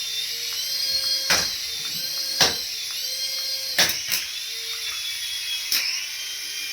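Small electric toy motor whining at high speed, its pitch wavering up and down, with about five sharp clicks or knocks.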